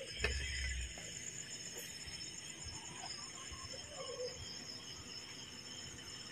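Night insects such as crickets trilling steadily in a high, continuous chorus, with a brief low rumble in the first second.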